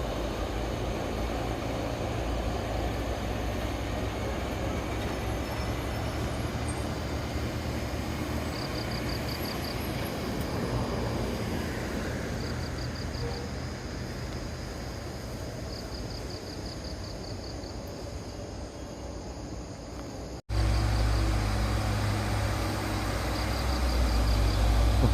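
Steady low rumble of heavy road traffic (trucks and buses passing), with insects chirping in short repeated trills. About twenty seconds in the sound cuts abruptly to a louder, closer heavy-engine rumble.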